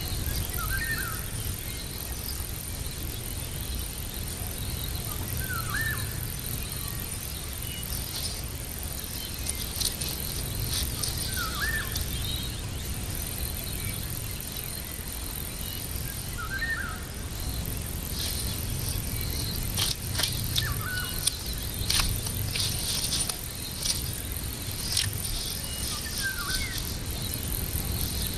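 A short, squeaky call, most likely from an animal, repeated about every five seconds over irregular crackling and rustling that grows busier in the second half.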